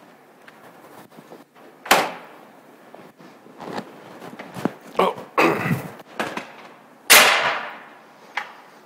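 Clanks, knocks and footfalls on a Haulotte LiteRiser 10SP aerial work platform as a person climbs into its railed basket and steps onto the metal deck. There are two sharp slams, one about two seconds in and the loudest about seven seconds in, with smaller knocks between them.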